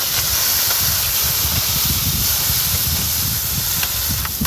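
Food sizzling on a hot cooking surface at a street food stall, a steady loud hiss with a low rumble under it, and a few light utensil clicks near the end.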